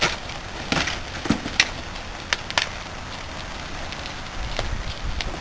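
Fire crackling and popping as a microwave oven's plastic and electronics burn in a fire bin: several sharp, irregular cracks over a steady hiss of flame.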